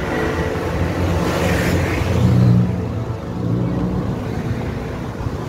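Passing road traffic close by: car and motorcycle engines rumbling, swelling loudest about two seconds in as a vehicle goes past, then easing off.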